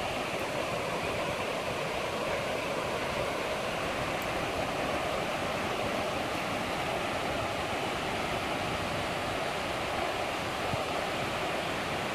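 Steady rush of river water pouring over a low-head dam.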